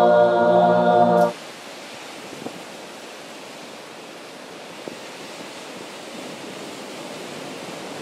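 A group of voices holding several sustained tones together cuts off abruptly about a second in. It gives way to the steady rush of ocean surf breaking on a rocky shore.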